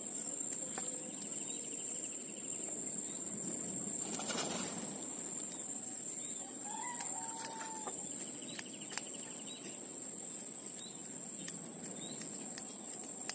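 Outdoor ambience: a steady high insect drone, brief bird calls and rattling trills, and a short rustling burst about four seconds in, with a few sharp clicks later on.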